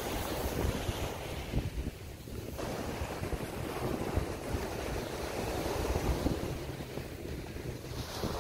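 Waves washing onto the beach, with wind gusting across the microphone in a fluctuating low rumble.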